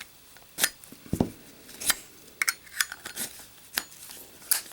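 Brass Zippo lighter cases and inserts being handled: a scattered series of sharp metallic clicks and clinks, with a duller knock about a second in.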